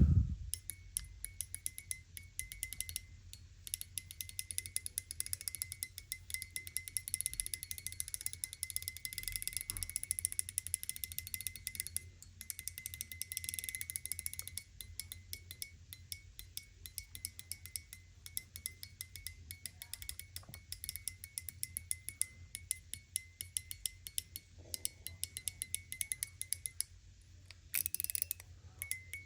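Voyager mechanical fidget slider (push card) worked back and forth in its high-low tone mode: a dense run of rapid metallic clicks with a bright ringing note, busier in the first half.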